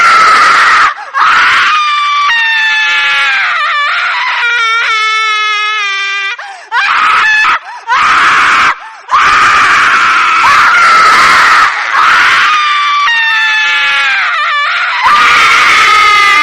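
A horror sound effect of loud, shrill screaming: several long screams one after another with short breaks between them, the pitch wavering and some sliding downward.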